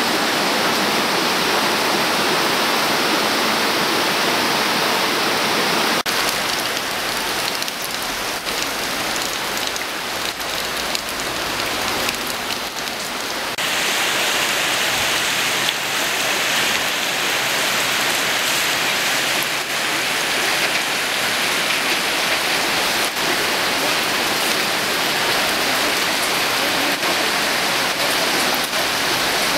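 Muddy floodwater from an overflowing stream rushing across a street, a steady hiss of running water. Its tone shifts abruptly about six seconds in and again about fourteen seconds in, slightly quieter in between.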